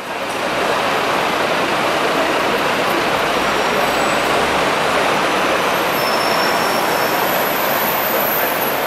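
Busy city street traffic of buses and cars: a steady wash of engine and tyre noise, with faint high squeals from about six seconds in.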